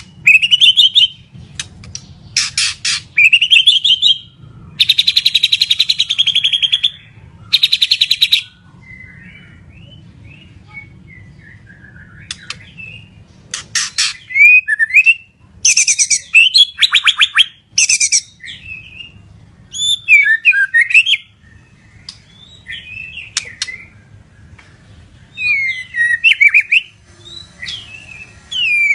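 White-rumped shama (murai batu, Medan type) singing hard. Bursts of varied phrases, whistled sweeps and long rapid rattling trills, come every second or two with short pauses between, over a faint steady low hum.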